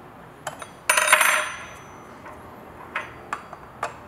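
Metal clinks from a tool on the chain tensioning screw and the diamond chain shifting on the bar of an ICS 695XL concrete chain saw while the chain is being tightened. There is a short ringing metallic rattle about a second in, then a few sharp clicks.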